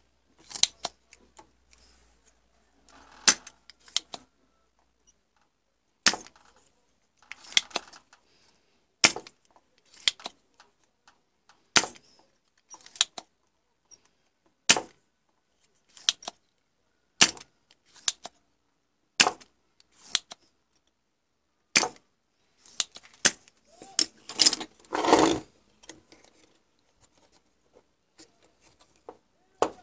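Spring-loaded desoldering pump firing over and over: about a dozen sharp snaps of the released plunger, a few seconds apart, with softer clicks and rubbing between them as it is cocked again. Near the end comes a rougher scraping noise lasting about a second.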